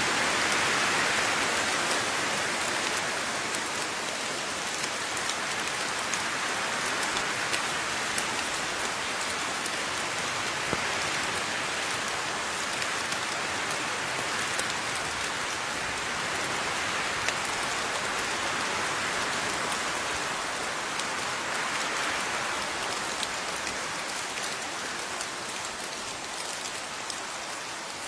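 Steady rain falling on a surface, with many individual drops ticking through the even hiss; it swells slightly now and then and eases a little near the end.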